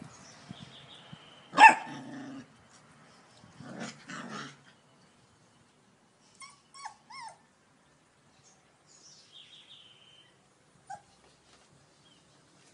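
Puppy barking and yipping: one loud sharp bark about a second and a half in, then three short high yips falling in pitch around the middle, and a single yip near the end.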